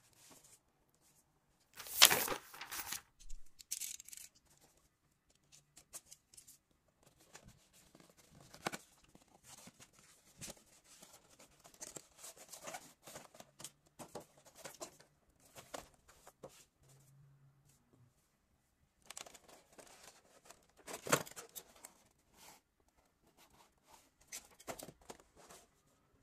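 Cardboard box and clear plastic blister tray of an action figure being opened and handled: irregular crinkling, rustling and scraping of plastic and card, with louder rustles about two seconds in and again about two-thirds of the way through.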